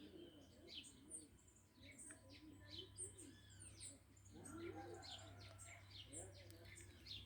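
Faint birdsong: many small birds chirping, with low cooing calls underneath.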